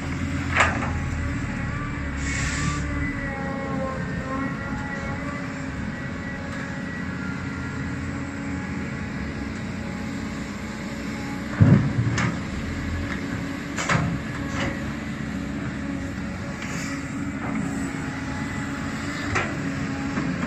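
Cat 320D excavator's diesel engine running steadily under load with a whining hydraulic pump as the machine digs and swings its bucket. Several sharp clanks and knocks from the bucket and boom, and a heavy thud about halfway through, the loudest moment.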